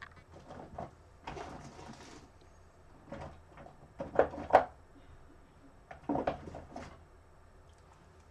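Items being handled on a workbench: a rustle a little over a second in, two sharp knocks about four and a half seconds in, and a few more small knocks and rattles around six seconds.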